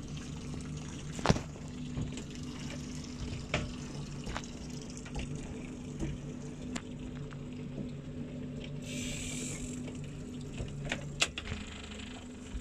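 Water sloshing and splashing around a small boat over a steady low hum, with scattered light knocks and clicks and a short hiss about nine seconds in.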